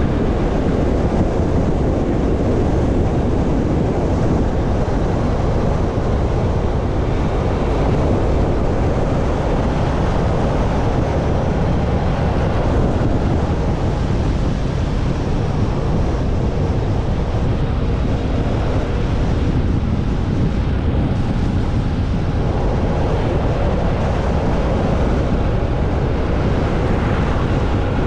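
Motorcycle riding along, wind buffeting the microphone over the steady running of the engine.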